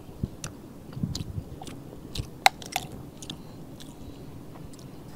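A person chewing a sausage close to the microphone, with irregular small wet mouth clicks, the sharpest about halfway through.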